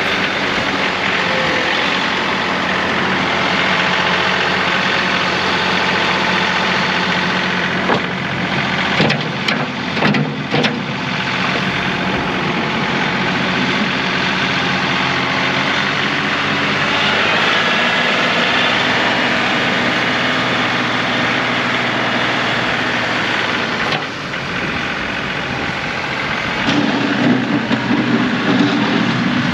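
John Deere 2038R compact tractor's diesel engine running steadily, with a few clunks about ten seconds in; near the end the engine note changes and grows louder.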